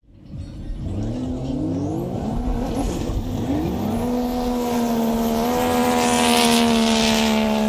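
Racing jet skis at full throttle in a drag run: the engines climb in pitch over the first few seconds, then hold a steady high pitch.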